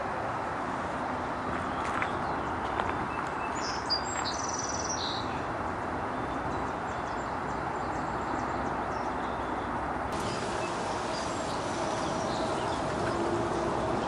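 A steady hum of distant traffic, with a small bird chirping a few times about four seconds in and fainter high calls later.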